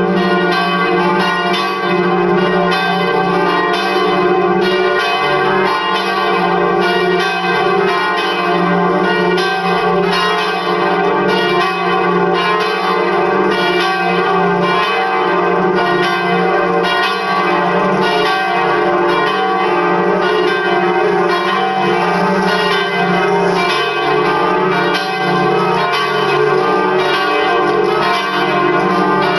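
Full peal of four swinging church bells, tuned D, D-sharp, F and G, ringing together. Their strikes overlap in a continuous, even ringing.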